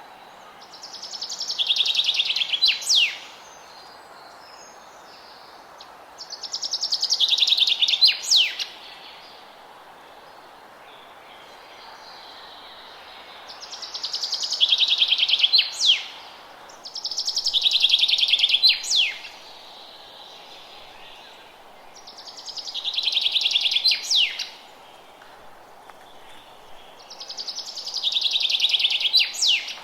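A songbird repeating the same song six times, roughly every five seconds: each song is a fast trill that swells for about two seconds and ends with a sharp downward-sweeping note or two. A steady low hiss of forest ambience runs underneath.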